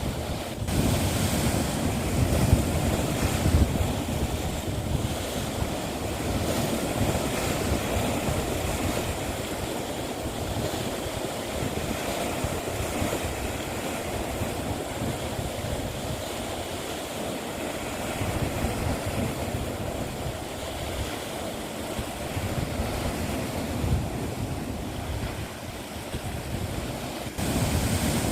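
Sea waves washing onto the shore, a continuous rush that swells and eases, turning louder near the end.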